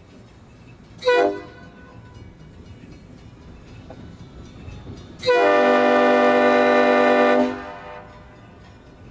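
Nathan P5 five-chime air horn sounding a short blast about a second in, then a long blast of about two seconds. These are the closing short and long blasts of the long-long-short-long grade-crossing signal.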